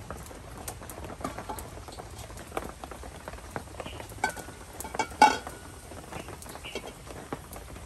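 Continual fine crackling and pattering, with a loud metal clank and brief ringing about five seconds in as a stainless steel pot is set down on the clay stove.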